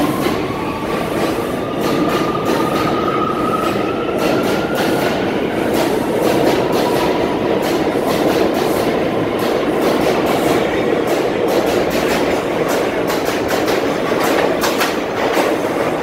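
NYC Subway R179 train pulling out of an underground station and passing close by: a loud rumble of the cars with the rapid clacking of wheels over rail joints. A faint whine rises over the first few seconds as it speeds up.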